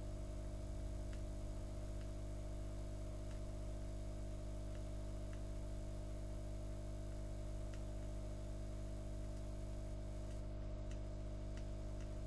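Steady low electrical hum with a few faint, scattered ticks.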